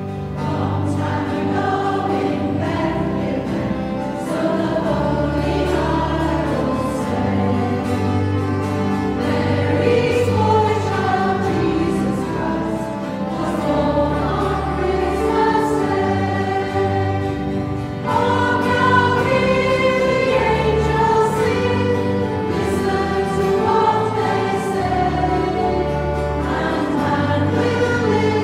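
A church choir of mostly women singing a carol together, with instruments accompanying underneath.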